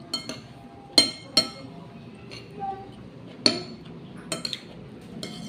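Metal spoon clinking and tapping against a dish while eating: about eight short, sharp ringing clinks, the loudest about one second and three and a half seconds in.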